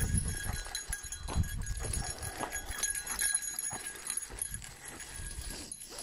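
Footsteps crunching on a gravel path at a walking pace, in irregular steps, as the handler follows a German Shepherd on a long leash.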